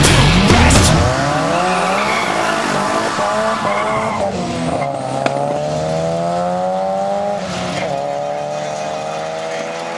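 Drag-racing car launching hard from the start line with wheelspin. Its engine climbs in pitch at full throttle through the gears, with upshifts about four and seven and a half seconds in.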